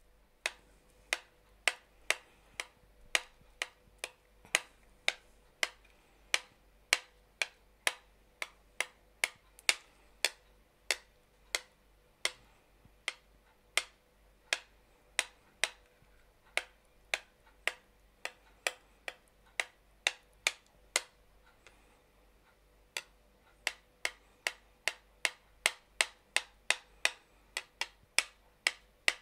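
Metal spoon clicking against a plate as it pushes rice aside, about two sharp clicks a second of uneven loudness, with a short pause about two-thirds of the way through.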